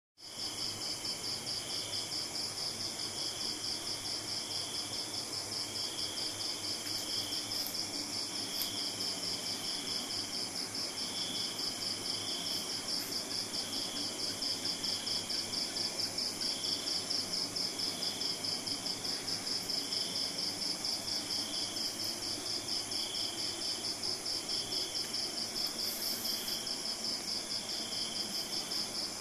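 Insects chirping steadily: one gives a fast, even trill of about four pulses a second, and a second, lower-pitched one chirps about once a second.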